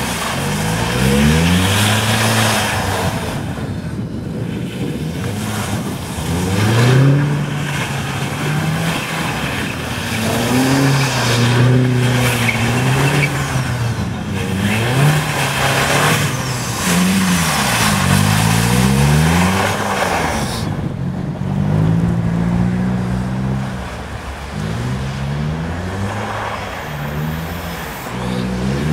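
Opel Astra G Bertone's turbocharged 2.0-litre four-cylinder engine revving up and down over and over while the car spins donuts on snow. The pitch rises and falls every two to three seconds.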